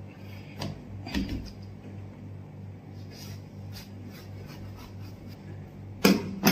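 A kitchen knife cutting through a whole watermelon, with faint scattered crackles and scrapes over a steady fan hum. Two loud thumps come close together near the end.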